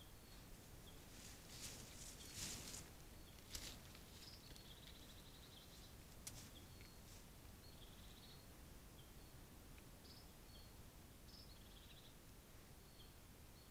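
Near silence outdoors, with faint high-pitched chirps and short rapid trills repeating every second or two. A few brief rustling bursts come about two to three and a half seconds in, and one more near six seconds.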